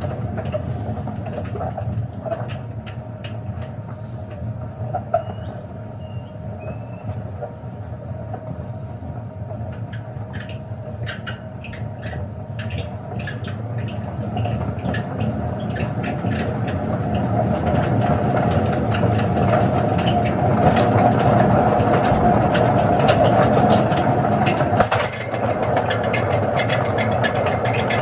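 Simpson washing machine running: a steady mechanical hum with many clicks and rattles. It grows louder through the second half, then briefly drops about three seconds from the end.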